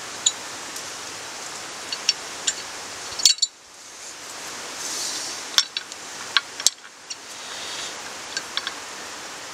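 Metal lug bolts clicking and clinking now and then as they are threaded by hand onto a trailer wheel hub, over a steady background hiss.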